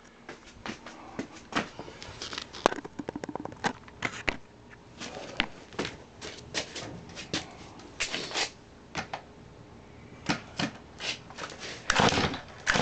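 Chainsaw being pull-started on full choke: rattling and clicking from the saw and its recoil starter, with a few rasping pulls of the starter cord, the loudest near the end. The engine does not run; on full choke it will not catch.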